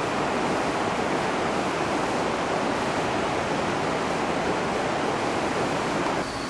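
River in flood rushing past: a steady, even rush of high, fast-running water.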